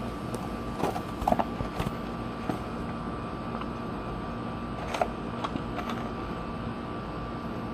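Scattered light clicks and knocks from brake parts being handled while the front brake caliper is worked on, a few in the first two seconds and a few more about five seconds in, over a steady background hum with a faint high tone.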